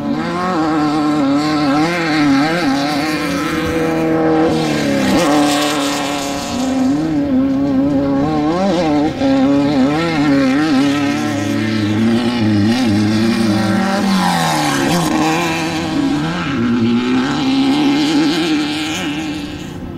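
Off-road desert race vehicle engines running hard, their pitch wavering rapidly up and down as the revs rise and fall. A second, lower engine note drops in pitch about fourteen seconds in.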